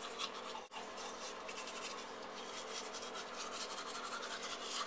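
Toothbrush scrubbing teeth with baking soda in fast, rhythmic scratchy strokes, with one brief break under a second in. The brushing is hard enough to redden and bleed the gums.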